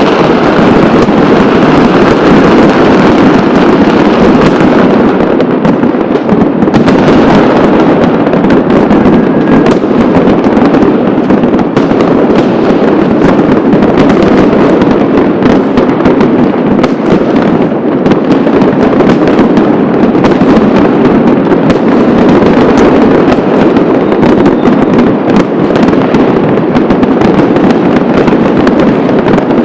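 Loud, dense barrage of fireworks and firecrackers: countless bangs and crackles overlapping into an unbroken din.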